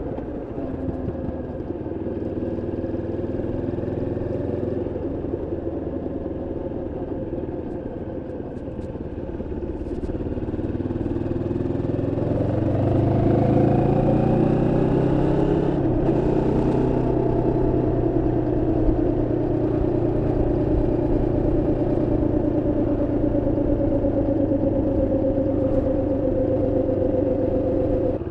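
Moto Morini X-Cape 650's parallel-twin engine running under way while still in its break-in. The revs climb about halfway through, drop sharply once, then settle to a steady cruise.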